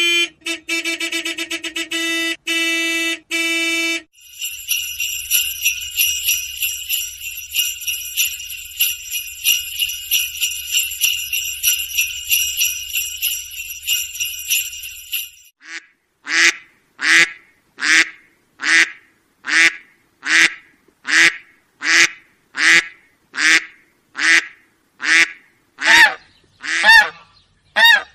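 A run of dubbed sound effects. First a few seconds of pitched chiming tones, then a long steady high jingling ring, then a string of evenly spaced short honks, about three every two seconds.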